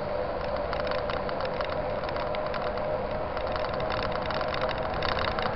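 Bike Soul SL 129 mountain bike coasting downhill, the rear hub's freewheel ticking fast and steadily, with tyre noise from the wet asphalt underneath.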